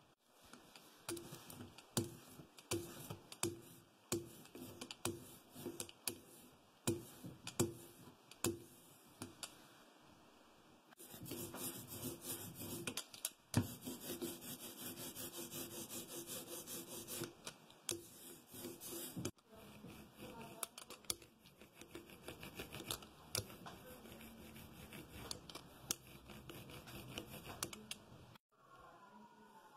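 Hand tools working a linocut block: faint, repeated scraping and rubbing strokes, regular at about one every half second at first, then a denser continuous scraping, then lighter irregular strokes.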